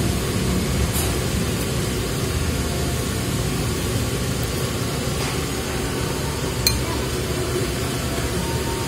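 A person eating flat rice noodles with wooden chopsticks, chewing and slurping over a steady background noise, with one sharp click of the chopsticks about two-thirds of the way in.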